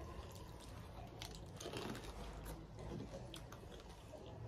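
Faint crunching and chewing of crisp panipuri shells, heard as scattered small clicks and crackles.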